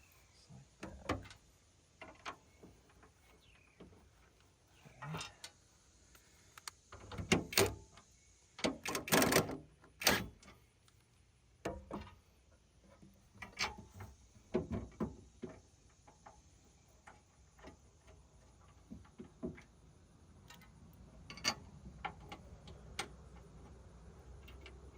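Scattered knocks and clinks of metal hardware and hand tools being handled while fitting a bumper, with a cluster of louder knocks about a third of the way in.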